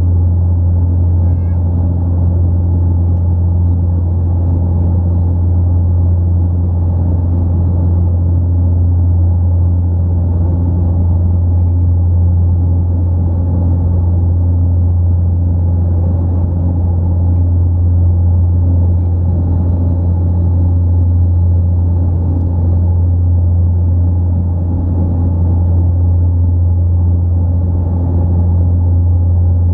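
Cabin noise of an Antonov An-24B's AI-24 turboprop engines and propellers, heard from inside next to the nacelle: a loud, steady low drone with a strong propeller hum, unchanging while the aircraft climbs out toward cruise.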